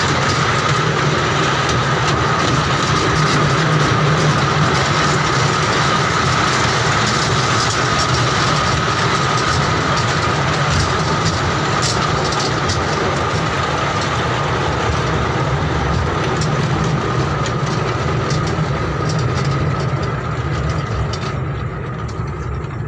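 Small amusement-park kiddie train running on its circular track: a steady noise of wheels and drive with a constant whine, dying away over the last few seconds.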